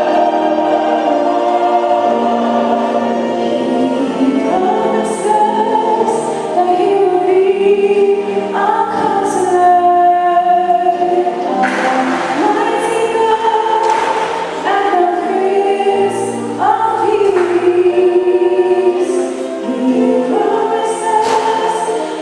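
A choir singing a gospel hymn, several voices holding long notes together and moving from chord to chord.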